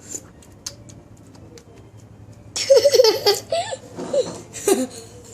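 A woman laughing in short, loud bursts that start about halfway through, after a few faint clicks.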